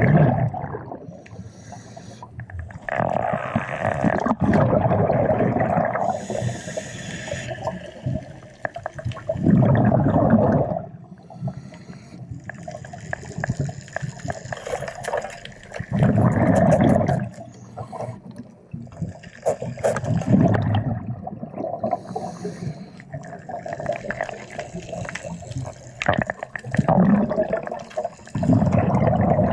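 Scuba diver breathing underwater: exhaled bubbles rush past the camera in loud bursts every few seconds, with quieter water hiss between.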